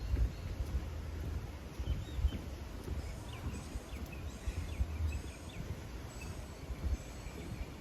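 Small birds chirping faintly in short, quick notes between about two and five seconds in, over a steady low rumble on the microphone.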